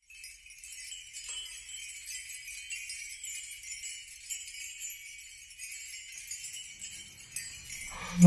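High, thin jingling of small bells, continuous and shimmering. Just before the end a low tone and a melody come in as music begins.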